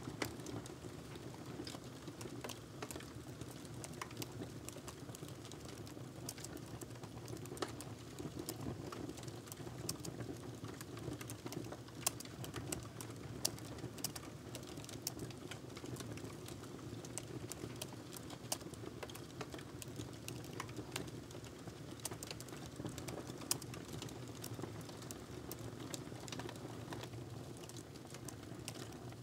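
Typing on a laptop keyboard: an uneven, continuous run of soft key clicks over a steady low background hum.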